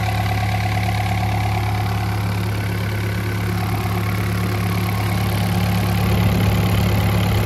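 Yanmar diesel engine of a Doosan DX85R-3 mini excavator idling steadily, heard close up with the engine compartment open. It gets a little louder about six seconds in.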